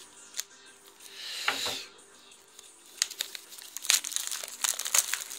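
Plastic shrink wrap being slit and pulled off a book, crinkling. It is soft at first and turns into dense crackling about halfway through.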